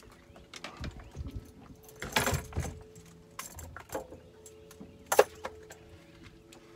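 Light clinking and rattling of fishing tackle as a small blue catfish is swung in and taken off the line, with a brief rush of noise a little after two seconds and one sharp knock a little after five seconds.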